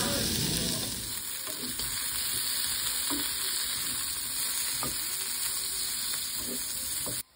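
Pork belly sizzling on a tabletop barbecue grill, then, after about a second, Brussels sprouts and cherry tomatoes sizzling in a frying pan while a wooden spatula stirs them with a few soft knocks. The sizzle stops abruptly just before the end.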